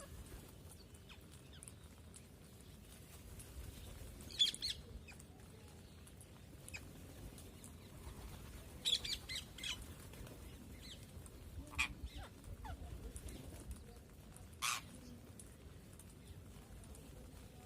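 Parrot giving short, sharp squawking calls in separate bursts: one a few seconds in, a quick cluster around the middle, another soon after, and a single loud call near the end.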